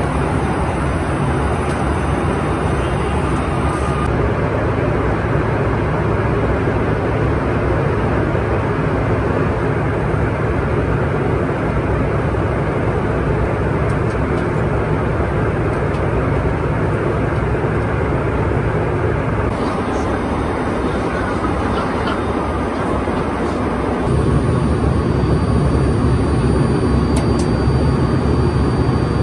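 Steady jet cabin noise inside a Bombardier CRJ-550 regional jet in flight: the even rush of airflow and the two rear-mounted turbofans, with small shifts in level and tone a few times.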